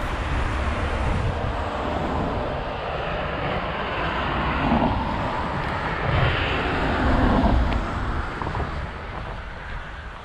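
A passing engine, a steady rumble whose pitch bends up and down as it swells, loudest a little past the middle and fading near the end.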